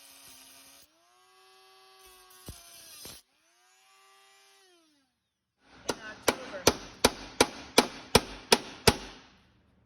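Handheld rotary tool with a small diamond cut-off wheel running in short spells, its whine rising as it spins up and falling as it winds down. Near the end come about nine sharp, evenly spaced knocks, roughly three a second, over a hiss.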